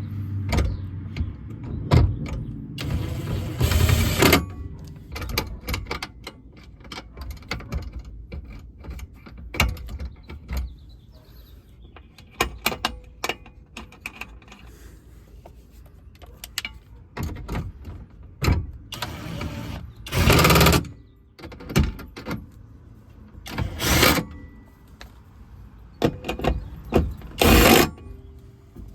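Hands and tools at work reassembling a pickup truck's door and window mechanism: scattered clicks and knocks, with four short rasping bursts of about a second each.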